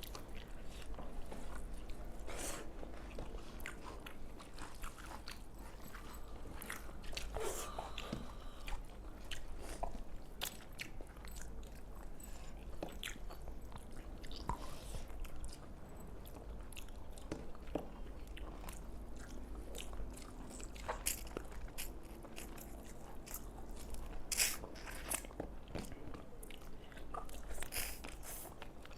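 People eating rice and spicy pepper chicken by the mouthful: close, wet chewing and biting with scattered mouth smacks and occasional crunches, irregular throughout.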